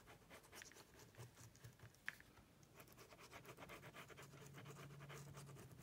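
Faint scratching of a liquid glue bottle's fine nozzle dragged across cardstock while a bead of glue is laid along a paper die cut.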